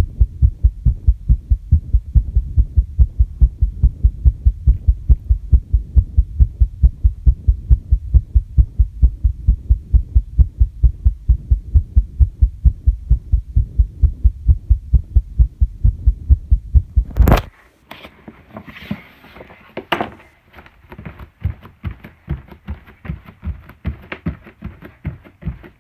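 Human heartbeat, loud and close, thudding in a quick, even rhythm, raised by the squats and jumps just done. About two-thirds of the way through a loud knock cuts it off, followed by faint taps and rustling.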